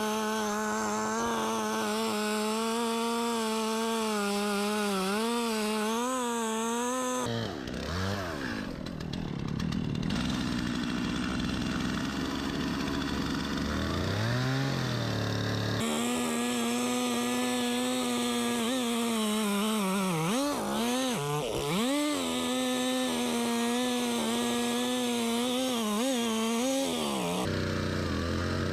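Two-stroke chainsaw running at high revs while cutting wood, its pitch wavering and dipping as the chain loads up in the cut. Through a stretch in the middle it runs at a lower pitch and revs up once before going back to full-speed cutting.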